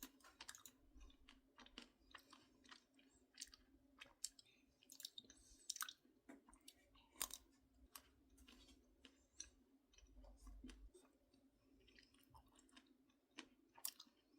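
A person chewing a crunchy snack close up: irregular crisp crunches, several a second, some louder than others.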